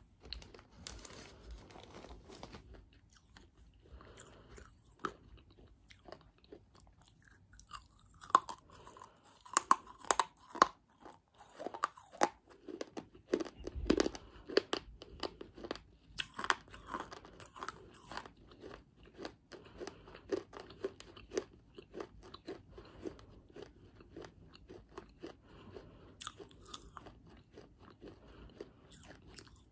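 Close-miked chewing of hard baked clay, with sharp crunches and crackles. The crunches come thickest and loudest in the middle stretch, then thin out into softer chewing.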